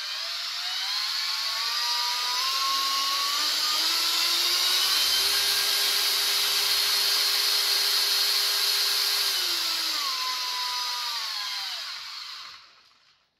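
Brushless motor of a modified Makita cordless drill, under sensorless control, spinning up to a higher speed with a rising whine. It holds a steady speed, then winds down about ten seconds in and stops near the end.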